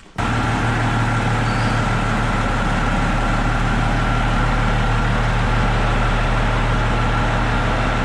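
Old Case tractor's engine running steadily under a thin, steady high whine.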